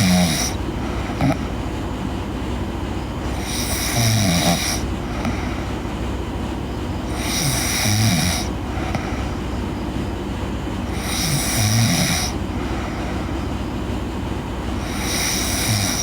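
A sleeping girl snoring steadily, five breaths about four seconds apart, each with a low rasping snore and a breathy hiss, over a steady low rumble.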